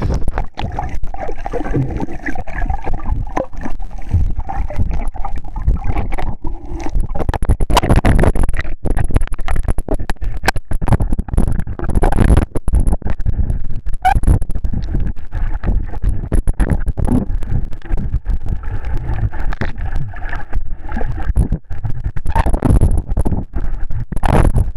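Seawater sloshing and gurgling around a camera at and below the surface, muffled and close, with frequent knocks and rubbing on the camera body.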